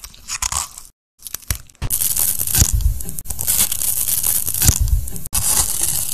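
Close-miked crunching and crackling as a small metal tool picks the seeds out of a fresh strawberry: a few short scrapes at first, then from about two seconds in a dense run of crisp little pops.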